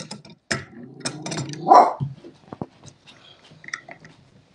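A small dog barking in short, sharp yaps, the loudest about two seconds in, over light clicks and taps of channel-lock pliers working a pipe fitting.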